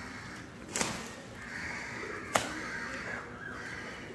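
Crows cawing harshly for a couple of seconds in the middle. Two sharp snaps about a second and a half apart are the loudest sounds.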